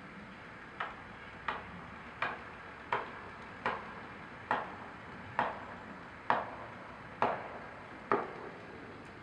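Ten sharp blows from a striking tool at the base of a large pine tree, coming about one a second and slowing slightly as they go.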